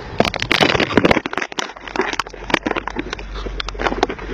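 Handling noise close to the microphone: a rapid, irregular run of clicks, knocks and crackles as the tinted glasses are fumbled in front of the camera.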